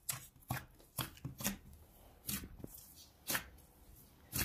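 Fists punching and kneading a large mass of risen tarhana dough in a plastic basin, in about seven soft, irregular slaps and squelches. The dough is being punched down to knock the air out of it.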